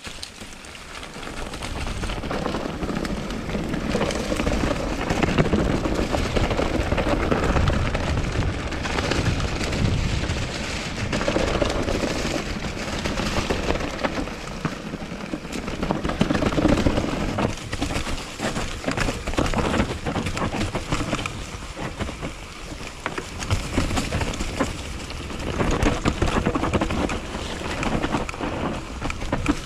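Onboard sound of a mountain bike riding down a dirt forest trail: wind rushing over the camera microphone, with tyres rolling over dirt and leaves and frequent knocks and rattles from the bike over bumps. It swells up from quiet over the first second or two.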